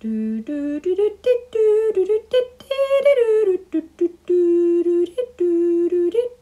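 A person humming a tune without words: a string of held notes that climb and fall, broken by short pauses between phrases.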